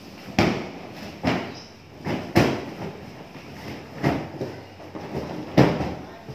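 Large plastic-wrapped bales being shoved and dragged across a tiled floor: a series of short scrapes and thuds, about six of them, uneven in spacing.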